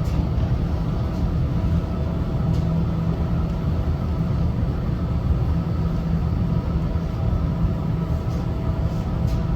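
Steady low rumble and hum inside a moving Ferris wheel cabin, with a few faint steady tones above it and no change in level throughout.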